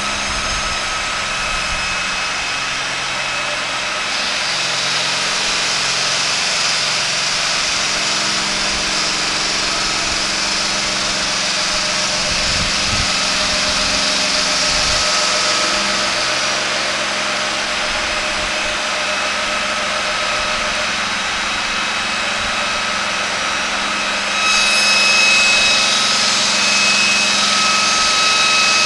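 A stone-cutting bridge saw's large circular blade cutting through a sandstone block. It makes a steady, loud hiss over a machine hum, with several steady whining tones. The hiss grows louder about three-quarters of the way through.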